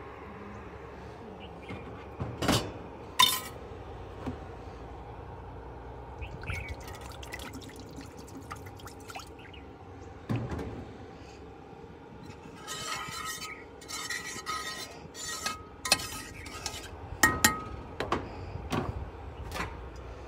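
Steel kitchen utensils clinking and scraping against each other. A couple of sharp clinks come in the first few seconds, then a busier run of ringing metallic clinks and scrapes from about twelve seconds in.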